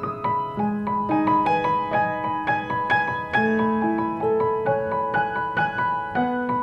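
Background music played on piano: a steady flow of single struck notes, several a second, each ringing and fading under the next.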